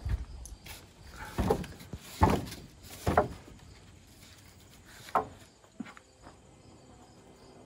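Sawn wooden boards knocking against each other as a plank is shifted and lifted off a stack: a handful of separate wooden knocks, the loudest about two and three seconds in, with one more about five seconds in.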